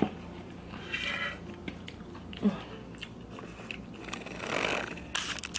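Close-up mouth sounds of eating: chewing with scattered wet clicks and smacks. There is a short louder sound about two and a half seconds in.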